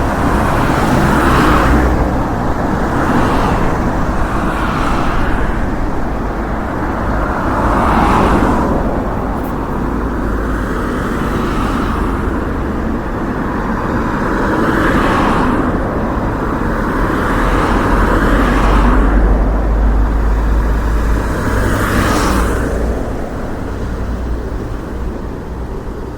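Street traffic: a continuous wash of road noise with a low engine rumble, as cars pass one after another, each swelling and fading over a second or two. The sound fades out near the end.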